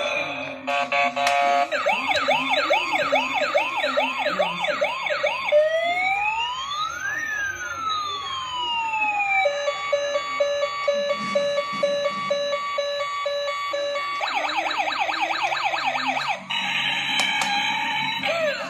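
Electronic police-siren sound effects from a toy police car's small speaker, changing pattern several times: a quick repeating up-and-down wail, then slow long rising and falling glides, then a steady row of beeps, then the quick wail again.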